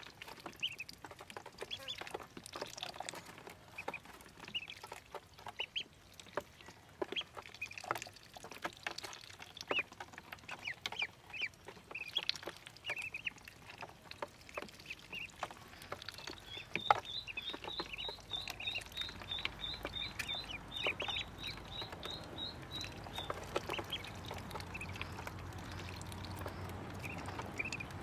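Ducklings peeping in short high notes, mixed with scattered sharp clicks and taps of bills on the plastic feeder tray. Past the middle comes a fast, even run of high chirps, about three a second for some six seconds.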